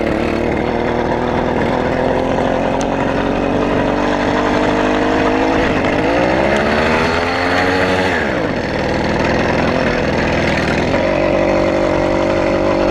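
Stock two-stroke engine of a motorized bicycle running under way while still cold. It revs up about six seconds in, drops back sharply at around eight and a half seconds, then runs on at a steady, higher pitch.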